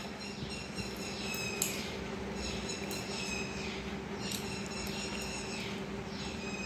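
Small birds chirping in the background: a scattered series of short, high, falling chirps, over a steady low hum.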